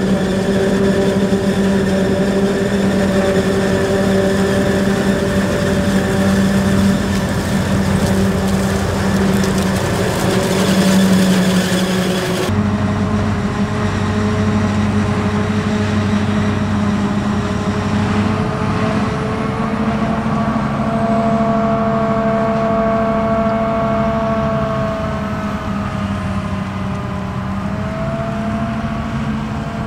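Forage harvester and tractor engines running steadily under load as chopped maize is blown from the harvester spout into a tractor-drawn trailer. The sound changes abruptly about twelve seconds in to another harvester-and-tractor pass, where the engine pitch drifts gently up and down.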